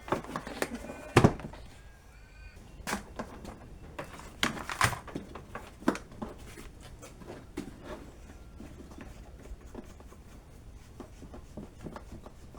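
A series of irregular knocks and clunks, the loudest about a second in and another cluster around five seconds, thinning out to lighter taps in the second half.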